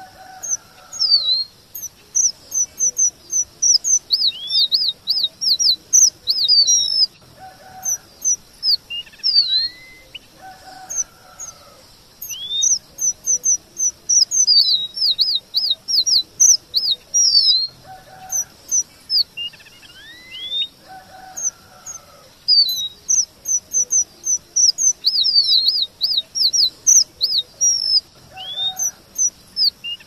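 Red avadavat (strawberry finch) singing: phrases of rapid high chirps and trills that repeat every couple of seconds, with softer, lower notes between them.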